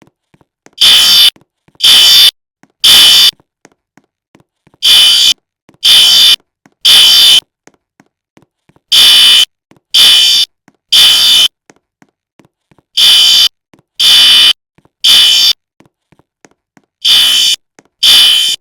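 Fire alarm sounding the temporal-three evacuation signal: three loud, high-pitched beeps about a second apart, then a pause, the group repeating about every four seconds.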